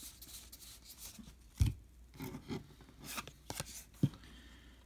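Stack of cardboard baseball trading cards being handled and shuffled through the hands, cards sliding and rubbing against each other with light flicks and clicks, and two dull thumps, one about a second and a half in and one about four seconds in.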